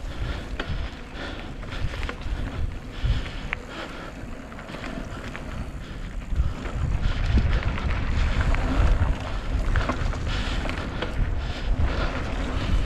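Wind buffeting the microphone of a moving mountain bike on a dirt trail, with tyre noise and scattered clicks and rattles from the bike. It gets louder from about seven seconds in.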